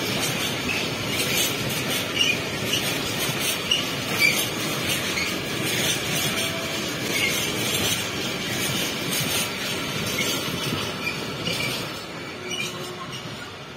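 Freight train of rail tank wagons rolling past at close range: steady wheel-on-rail noise with knocks from the wheels and short, high wheel squeals. It falls away near the end as the last wagons pass.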